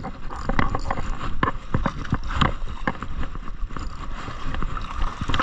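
Irregular clicks, knocks and rustling: handling noise from a kayak and fishing rod while a fish is being fought.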